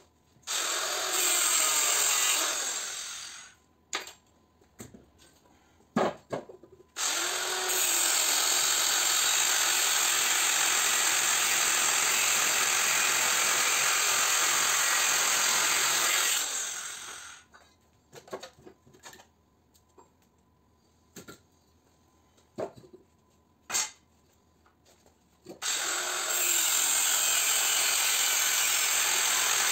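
Angle grinder spinning up and cutting into a metal electric-motor housing in three runs, a short one at the start, a long one of about nine seconds, and another from near the end. Sharp knocks and clanks of the metal being handled fall in the pauses.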